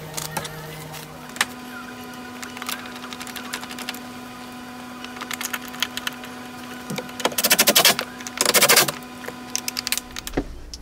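Hands working wiring and plastic trim: scattered clicks and taps, then two bursts of rapid ratcheting clicks, about seven and a half seconds in and again a second later, as zip ties are pulled tight. A steady low hum runs underneath.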